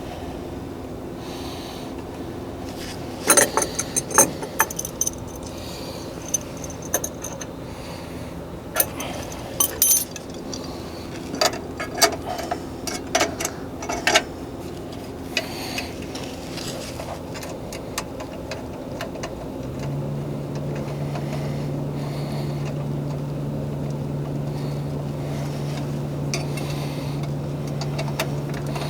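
Metal parts and tools clicking and clinking in scattered bursts as the oil burner is reassembled, over a steady machinery hum. About two-thirds of the way through, a second, lower steady hum starts and keeps running.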